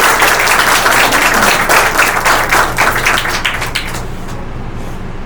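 Audience applauding, a dense patter of hand claps that stops about four seconds in, leaving a steady low hum.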